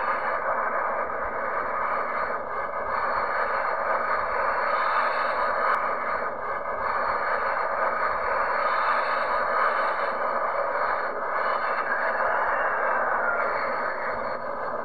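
Boeing 737's twin CFM56 turbofan engines at takeoff thrust during the takeoff roll and liftoff, a steady rushing noise heard from a distance.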